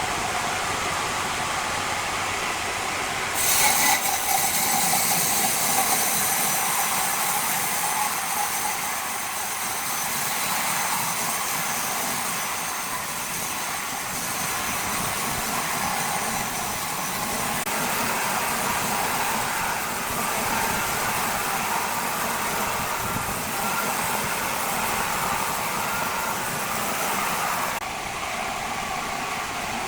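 Loud, steady machine noise with no breaks, growing louder and harsher about three seconds in.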